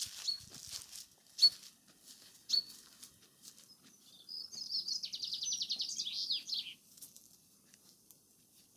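Three short, sharp sounds about a second apart, then a small songbird singing a fast high trill of quickly repeated notes for about two and a half seconds.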